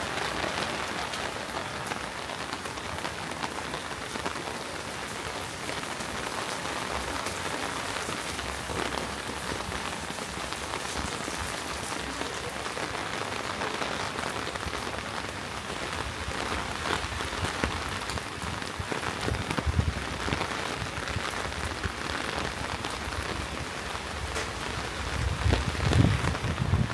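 Steady rain falling, a dense hiss with scattered fine drop ticks. Low rumbling thumps rise up through the rain a few times in the second half and are loudest near the end.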